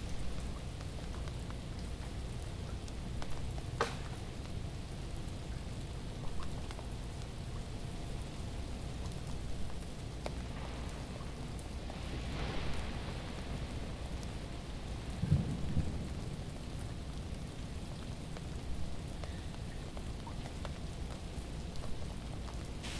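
Ice-glazed tree branches in an ice storm, crackling and shedding ice: a patter of scattered clicks and cracks over a steady low rumble. A heavier low thud about fifteen seconds in is the loudest moment.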